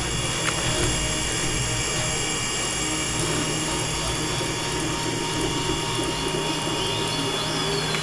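Five-axis CNC milling machine cutting continuously: steady machining noise with several high, steady tones from the spindle and cutter.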